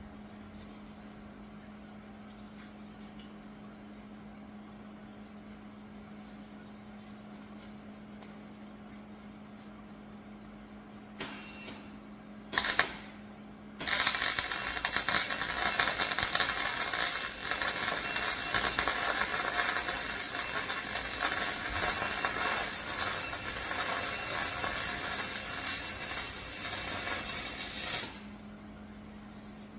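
Electric welding arc: two brief arc strikes, then a continuous bead of about fourteen seconds of steady crackling that stops abruptly. Before the strikes there is only a faint steady hum.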